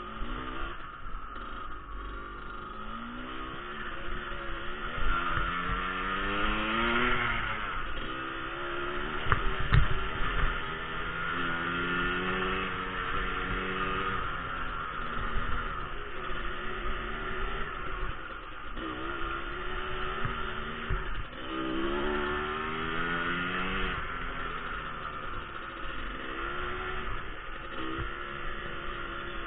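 Motorcycle engine running under way, its pitch climbing as it accelerates and dropping back at gear changes a couple of times, with a steady low rumble underneath. A single sharp knock about ten seconds in.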